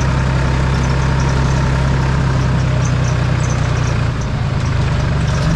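Engine of a tractor-based safari vehicle running steadily as it drives along a dirt track, heard from inside the open cage cab; the engine note shifts slightly about four seconds in.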